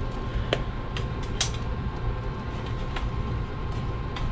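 Knife cutting and pincers prying the old sole off a leather work boot: scraping and creaking with a few sharp clicks, the loudest about a second and a half in, over a steady background hum.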